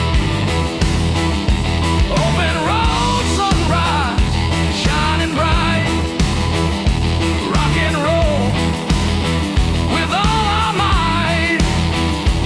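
Southern rock instrumental break: an electric lead guitar plays a bending, wavering melody over a steady drum beat and bass.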